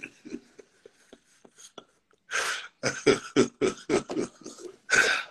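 Short bursts of a person's voice, starting about two seconds in after a brief lull.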